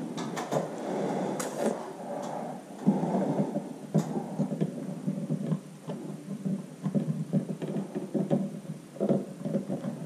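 Hands fumbling a plastic smoke detector and its wiring-harness plug, rustling with scattered light clicks and knocks as the connector is pushed at a socket it will not seat in.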